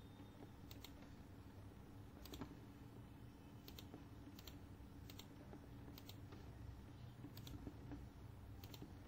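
Faint computer mouse clicks, about ten of them at uneven intervals, over a low steady hum.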